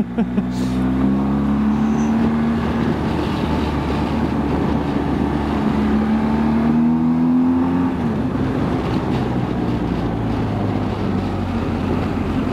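BMW R1250 GS Adventure's boxer-twin engine running under throttle on the move, its note rising slowly for several seconds and then dropping suddenly about eight seconds in.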